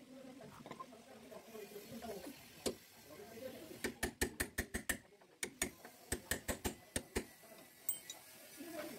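Hand ratchet wrench clicking in quick runs of about five or six clicks a second, undoing bolts under a car's front body. Two runs start about four seconds in, with a short pause between them.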